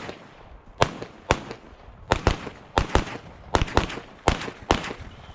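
A string of gunshots fired in quick succession during a timed match stage: about a dozen sharp cracks at one to three a second, irregularly spaced, each with a short echo.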